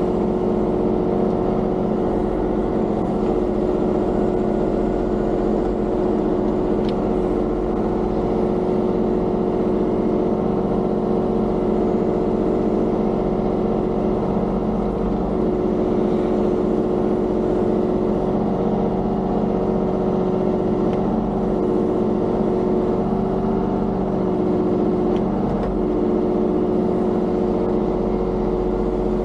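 Diesel engine of a compact construction machine running steadily at working speed, with brief small dips in pitch a few times in the second half as it takes hydraulic load while digging and moving gravel.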